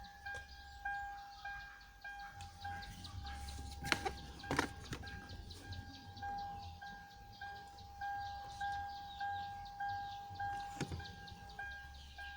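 A car's electronic warning chime dinging over and over at one steady pitch, a little under two dings a second, with a few sharp clicks, two of them about four seconds in and one near the end.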